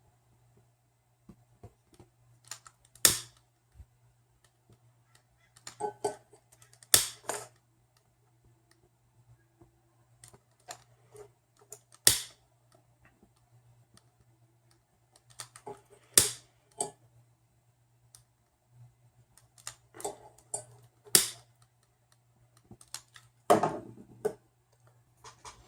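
A hand-held lighter being clicked repeatedly to heat-shrink tubing, one sharp click every four to five seconds, five in all, with fainter clicks and handling between.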